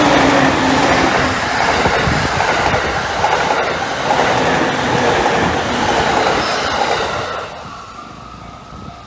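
A Takasaki Line electric train passing close by over a level crossing, with loud wheel and rail noise and clattering over the rail joints. The noise falls away sharply about seven and a half seconds in as the last car clears, leaving a faint steady tone.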